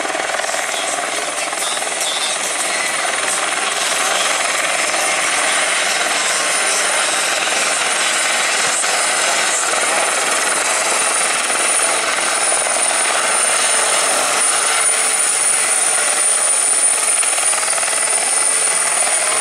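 Airbus EC120B single-turbine helicopter in flight close by: steady rotor and turbine noise, with a high, steady whine that grows stronger about halfway through.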